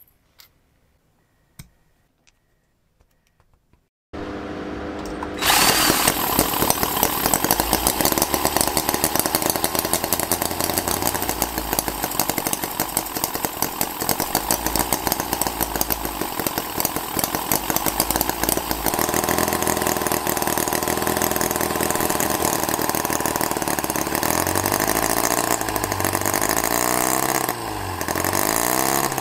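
A few small metallic clicks of parts being handled, then the Holt H75 miniature four-cylinder spark-ignition model engine starts up about four seconds in. It gets much louder a second later and runs fast and steadily, with its speed rising and falling over the last few seconds.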